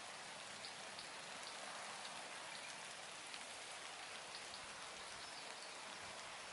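A steady soft hiss with a few faint ticks through it.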